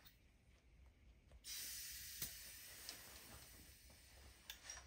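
Faint hiss of air escaping from a Yamaha RD250 two-stroke twin engine under a leak-down test, leaking out of the exhaust port. The hiss starts suddenly about a second and a half in and slowly fades, with a single click shortly after it starts.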